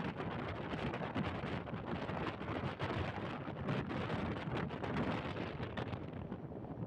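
Wind buffeting the microphone: a steady, rough rumbling noise with irregular crackles.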